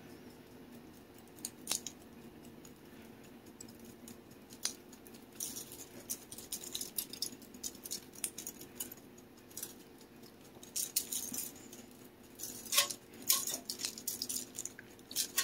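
Glass spice jar with a plastic sifter lid shaken over a chicken: the dried seasoning rattles in the jar in quiet bouts of quick shakes. The shaking is sparse at first, then busier about five seconds in and again near the end.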